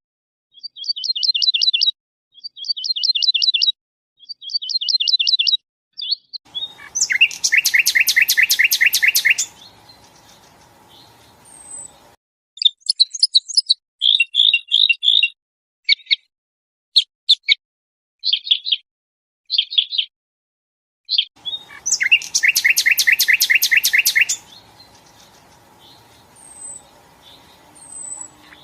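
Songbird song spliced into a compilation, each phrase separated by dead silence. First a short warbling phrase three times, then a loud, fast pulsing trill. Then a string of short chirps, and the same trill again near the end.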